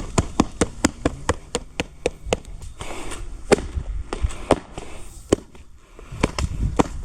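Rapid sharp knocks, about five a second at first and then more spaced out: a hand tamper striking concrete stamp mats to press the pattern into the wet concrete.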